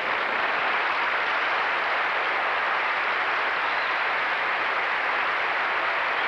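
Large theater audience applauding, a dense, steady clapping.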